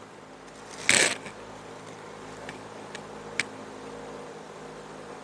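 A short rustling scrape about a second in, then a few light ticks, as a strand of chair cane is handled and drawn through the seat frame, over a faint steady hum.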